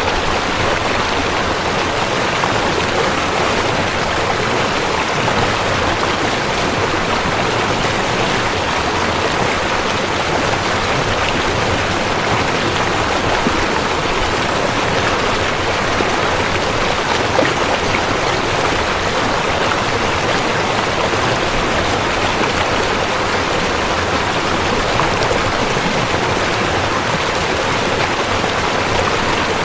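Rushing river: a loud, steady rush of flowing water with no let-up.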